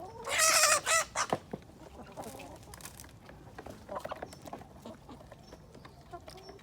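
A poultry bird gives one loud honking call about half a second in, followed by a short second call and a couple of knocks; after that only faint scattered sounds.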